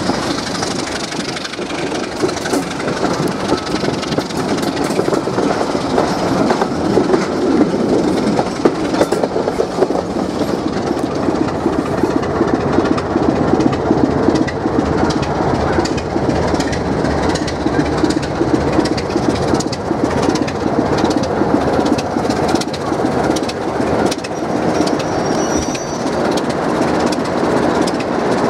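Moving passenger train: wheels clattering and clicking over the rail joints with a steady rumble and rattle from the coaches, heard from an open carriage window.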